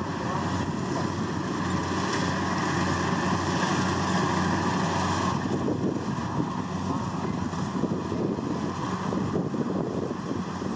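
Kubota DC70 Plus rice combine harvester working through a standing crop: its diesel engine hums steadily under the rough, even noise of the cutting and threshing machinery.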